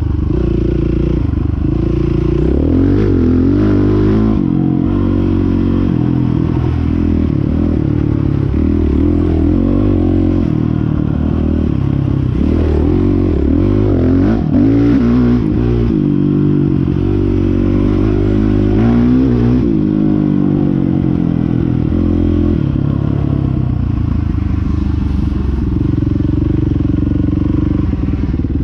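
Dirt bike engine heard from on board while it is ridden, its pitch repeatedly climbing under throttle and dropping back, with sudden steps in pitch.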